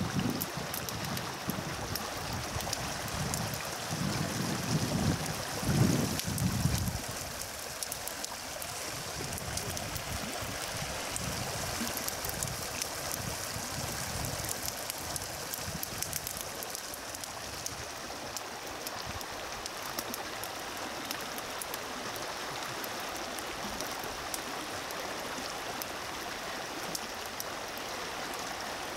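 Dry grass burning in a controlled field burn: a steady crackling hiss of the flames. A louder low rush swells between about four and seven seconds in.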